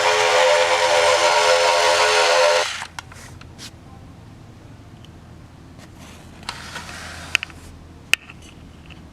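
Bit o'Lace B-17 Flying Fortress alarm clock playing its aircraft-engine drone, which cuts off abruptly a little under three seconds in. A few sharp clicks follow.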